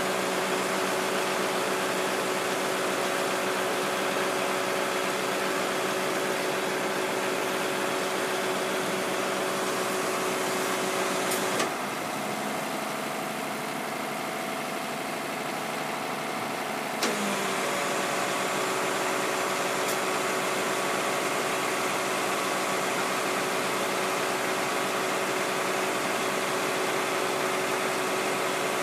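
A vehicle engine idling steadily. A little past the middle, a click is followed by a slightly quieter hum at a different pitch for about five seconds, and a second click brings back the first hum.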